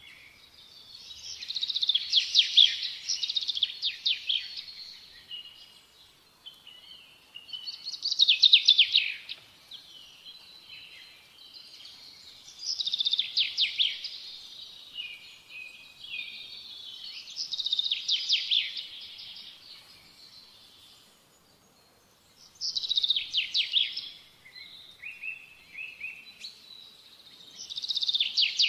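A songbird singing six high-pitched phrases of rapid trills, each a second or two long, with a few seconds between phrases.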